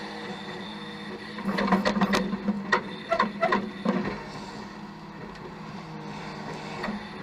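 Tow truck engine running steadily. Between about 1.5 and 4 seconds in comes a quick cluster of sharp clanks and rattles, the loudest sounds here.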